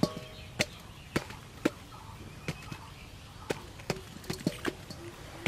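Hulled strawberries dropped one at a time into a steel bowl already heaped with strawberries, each landing as a short tap, roughly every half second; a few taps are followed by a brief ring.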